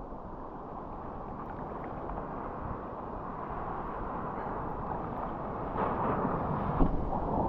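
Sea water sloshing around a surfboard, with wind on the microphone; the rush of a breaking wave's whitewater grows louder near the end, and a short thump comes just before it reaches the board.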